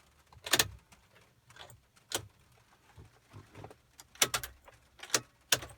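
Car keys jangling on their ring in a few short rattles as the ignition key is turned, with no starter click or cranking in reply: the 2003 Jeep Wrangler TJ has no electrical power at all.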